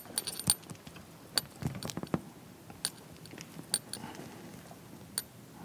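Handling noise: a scatter of sharp clicks and short knocks as a large card board is carried over and set up on a metal easel stand.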